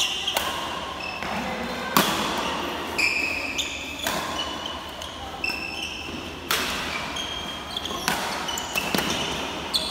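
Badminton doubles rally: rackets hitting the shuttlecock about once a second, around eight sharp hits, with short squeaks from shoes on the wooden court floor in between.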